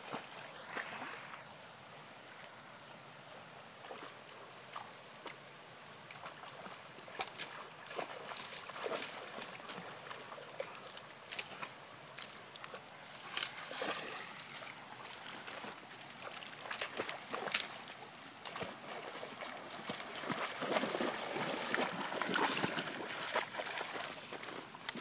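A Weimaraner wading and splashing through shallow pond water among brush, with scattered sharp splashes and rustles. The splashing grows busier and louder toward the end as the dog comes up close.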